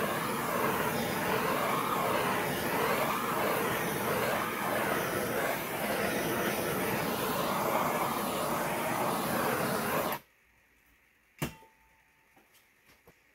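Handheld gas torch flame hissing steadily as it is swept over freshly poured epoxy to pop surface bubbles. It shuts off suddenly about ten seconds in, and a single sharp click follows a second later.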